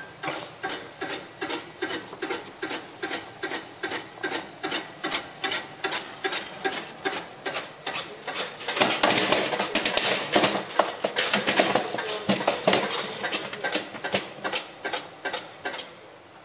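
Emura ECM-200T meat dicer running, its cutting mechanism clacking in an even rhythm two to three times a second, with a louder, denser clatter in the middle as cubes of meat are cut and drop into the tub. It starts at once and stops shortly before the end.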